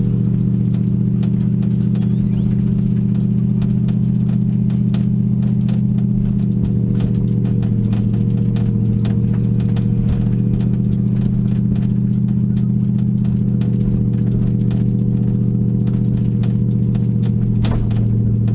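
Tow vehicle's engine droning steadily as a trailered boat is pulled up a launch ramp, heard from aboard the boat, with frequent small clicks and rattles from the boat shaking on its trailer.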